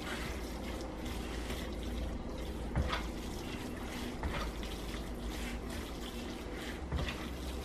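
Moist cornbread dressing being stirred and folded with a spatula in a bowl: a steady wet squishing, with a few light scrapes of the spatula against the bowl.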